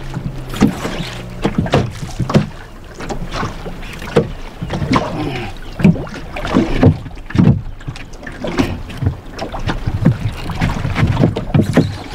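Water slapping against the hull of a small boat, with wind buffeting the microphone. It comes as irregular low thumps about two a second over a steady low hum.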